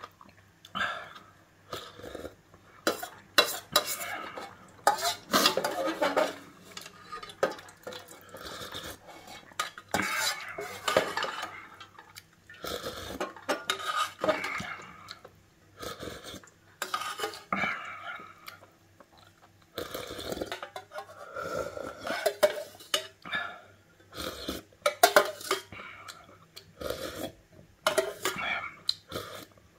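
Metal spoon scraping and clinking against a thin gold-coloured aluminium ramen pot as the last broth is scooped out, in irregular clinks and scrapes.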